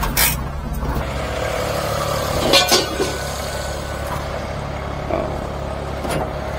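Engine idling steadily, with two short metallic clatters, one right at the start and one about two and a half seconds in.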